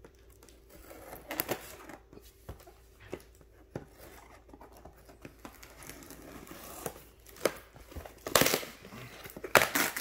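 A cardboard box and its packaging being handled and opened, with scattered rustles, taps and crinkling. Two louder tearing rips come near the end.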